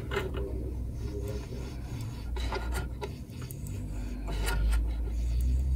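Scraping and rubbing with scattered light clicks as the plastic motor housing of a DeWalt DW735 thickness planer is handled and worked at around its carbon-brush holder, over a low rumble that grows toward the end.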